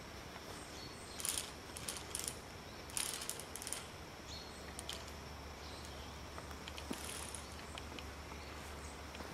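Sporadic metallic clicks and rattles of climbing-harness carabiners and a pulley on a steel safety cable as a climber moves across hanging wooden blocks, in small clusters about one, two and three seconds in, then fainter scattered ticks.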